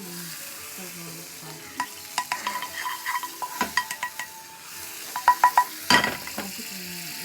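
A metal utensil clinking against a bowl as pancake batter is stirred, over the steady sizzle of a pan on the heat. The clinks are irregular, with a run of four quick, louder ones about five seconds in.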